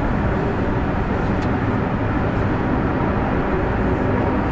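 Steady low noise inside a Hungerburg funicular cabin, even throughout with no distinct knocks or tones.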